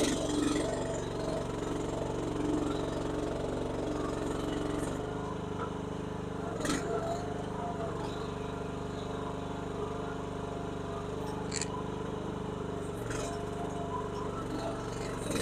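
Chinese mini skid steer's small engine running at a steady speed as the machine drives and manoeuvres, with a few sharp knocks, one about halfway through and one later.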